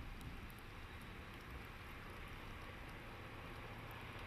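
Faint, steady rumble and hiss of a DD14 rotary snowplow locomotive's diesel engine approaching, growing slightly louder toward the end.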